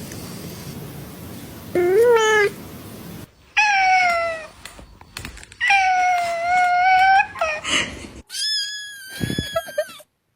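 Cats meowing: four drawn-out meows one after another, the first short and the last noticeably higher-pitched.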